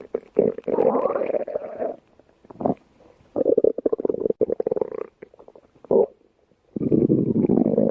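Human stomach growling: three long rumbles of a second and a half or more and two short ones, with brief pauses in between.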